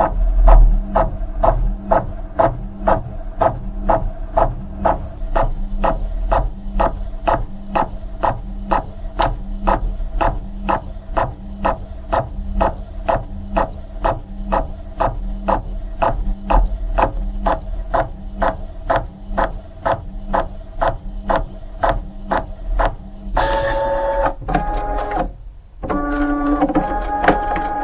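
Photocopier running, with a steady hum and regular mechanical clacks about two and a half times a second as it cycles sheets through. Near the end the rhythm stops and gives way to a different whirring with steady tones, broken by a brief pause.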